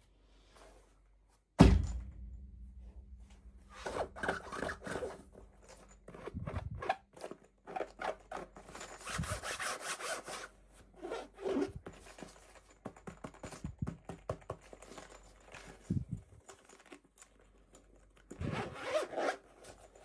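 Hands opening and handling toy packaging: a sharp knock about two seconds in, then scattered clicks, rustling and scraping, with a longer tearing or ripping sound a little before the middle.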